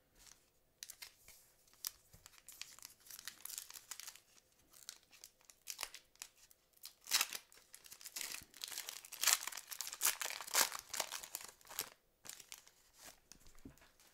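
Foil wrapper of a 2006 Fleer Ultra football card pack crinkling and tearing as it is ripped open by hand: a run of sharp crackles that starts about a second in and is loudest in the middle stretch.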